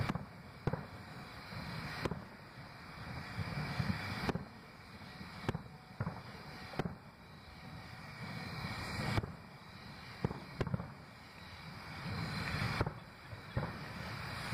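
Aerial fireworks shells bursting: about ten loud booms at uneven intervals, each with a short rumbling tail, over a steady low rumble.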